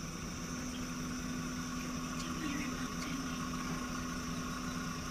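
Safari vehicle's engine running with a low steady hum, under a constant high chirring of insects.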